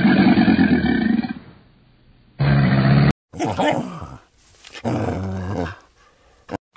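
A crocodile's deep growling roar, long at first and then a shorter second one. After that comes a puppy's short barks and growls, one falling in pitch and then a steadier one.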